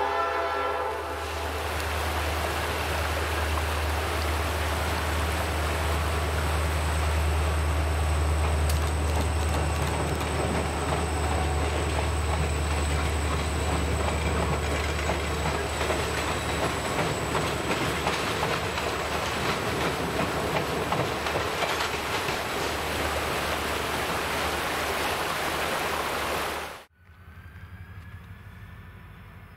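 Diesel-hauled passenger train crossing a short steel deck bridge. The tail of a horn blast ends about a second in, then the locomotive's low engine hum and the clatter of wheels carry on steadily as the cars roll past. The sound cuts off abruptly near the end and is followed by much quieter sound with a faint wavering tone.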